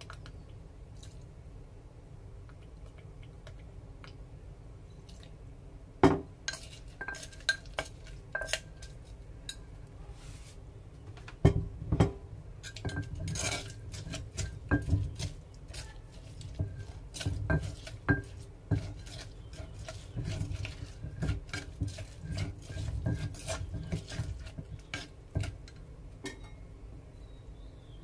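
Dishes and utensils clinking and knocking, scattered at first and then coming quickly one after another, over a steady low hum.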